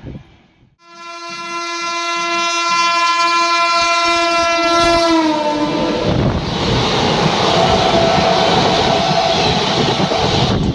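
A locomotive horn sounds one long steady blast that drops in pitch about five seconds in as the train passes. It is followed by the loud rush and clickety-clack of the train's wheels going by on the track.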